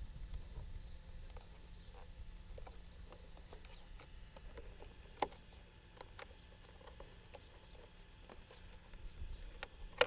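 Small clicks and handling noises from hands working on the plastic body and chassis of an Arrma Kraton 6S RC truck, with a sharper click about five seconds in and a louder one near the end, over a low rumble.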